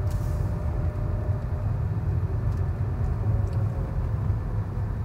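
Steady low rumble of road and engine noise inside the cabin of a moving Lada Vesta, with a faint steady hum above it.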